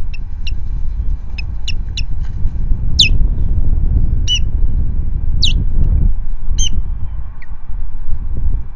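Ospreys giving alarm calls at an intruding osprey. A run of short chirps about two a second gives way to louder, sharp whistled calls that slide down in pitch, roughly one a second. Underneath is a steady low rumble of wind on the microphone.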